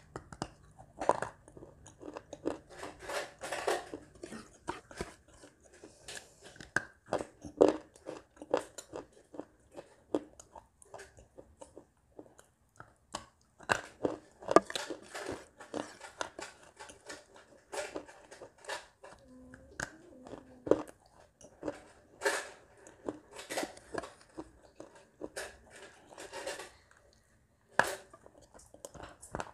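Clay pieces coated in wet clay paste being bitten and chewed: a run of sharp, irregular crunches with short pauses between bites.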